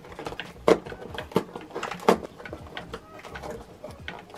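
Fingernails picking at and tearing open a small perforated cardboard advent-calendar door: a run of sharp scratchy clicks and snaps, with three louder snaps in the first half.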